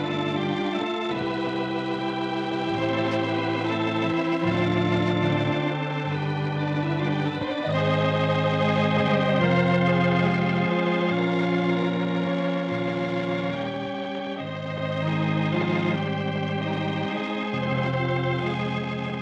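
Organ playing slow, sustained chords that change every second or two: closing music after the broadcast's sign-off.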